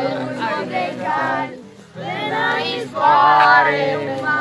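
Group of children and teenagers singing together. The voices stop briefly before the middle, then come back louder.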